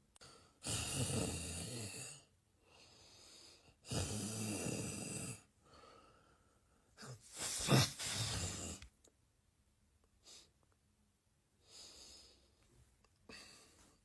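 A person snoring: three long, loud snores about three seconds apart, followed by only faint, short breathing sounds.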